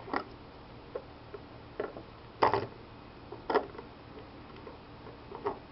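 Folding knives being handled and set side by side, giving about six short, irregularly spaced clicks and knocks, the loudest about halfway through.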